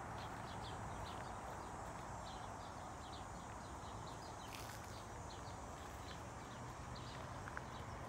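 Footsteps walking along a gravel garden path, with faint bird chirps over a steady background hum.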